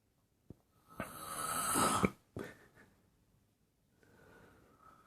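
A man snoring: one long snore that builds in loudness and breaks off about two seconds in, then a fainter breath near the end.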